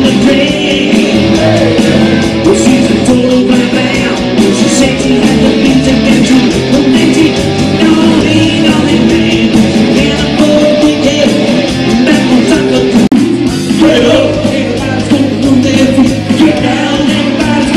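Live rock band playing: a man singing lead over electric guitar, bass guitar and drums, with a momentary break about two-thirds of the way through.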